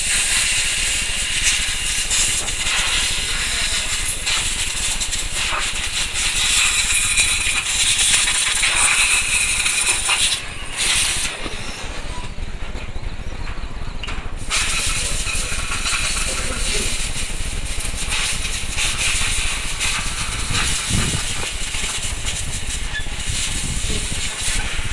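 Radio-controlled buggy driving on a loose dirt track, a steady hiss and rattle of tyres and gravel that drops away for a few seconds about halfway through.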